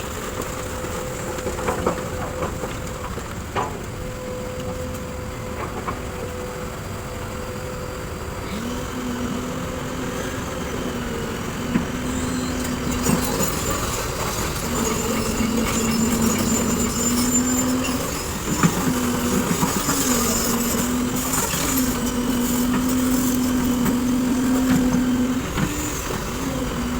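Kobelco SK200 hydraulic excavator working, its diesel engine running under a steady machine noise. From about a third of the way in, a steady low drone comes in long held stretches broken by short dips, as the engine works under hydraulic load.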